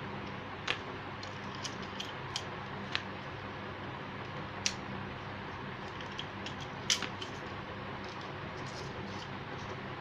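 Irregular sharp clicks and ticks of pliers and copper wire being worked at the screw terminals of a switch board, two of them louder than the rest. Behind them, a steady hiss with a low hum.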